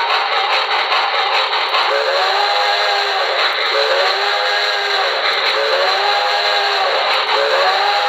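Recorded steam locomotive whistle from a QSI Maxx Traxx sound panel, played through a speaker: four chime-whistle blasts, each about a second and a half, bending slightly up and back down, over a steady hiss of running steam sound. The last blast runs on past the end.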